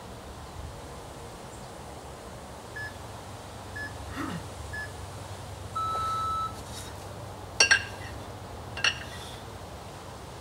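A timer beeps a countdown: three short beeps about a second apart, then a longer, lower beep to start the set. A few seconds later, two 24 kg kettlebells clank together sharply twice as they are swung and cleaned up to the rack.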